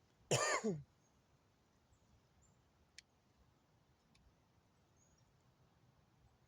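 A man's short cough, its voiced tail falling in pitch, about half a second in. A single sharp click follows about three seconds in.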